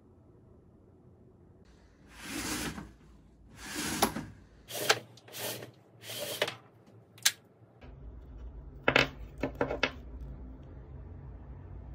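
Household handling sounds: two long swishes, then a few sharp clicks, and a quick cluster of clicks and taps about nine seconds in.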